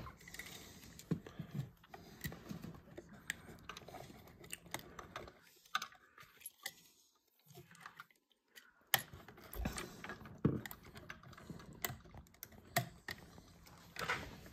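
Irregular light clicks and taps of a plastic wall switch and stiff electrical wires being handled at an open gang box, with a quiet stretch in the middle and a few sharper clicks in the second half.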